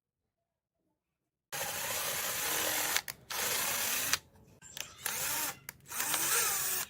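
A small electric motor or power tool running in several short stop-start bursts, each starting and cutting off abruptly.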